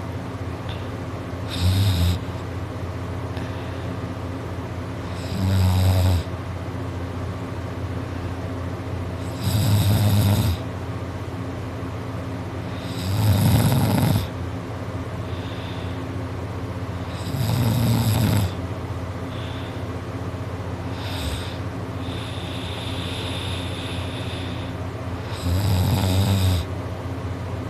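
A sleeping man snoring loudly, one heavy snore about every four seconds, each lasting up to a second, over a steady low hum.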